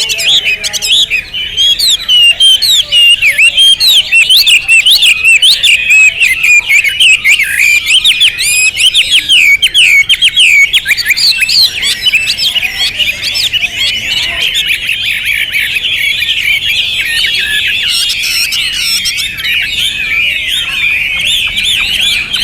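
Chinese hwamei (Garrulax canorus) singing loudly without pause, a fast, varied stream of whistled notes.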